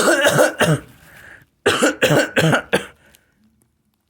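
A person coughing hard: one long coughing burst, then four quick coughs in a row.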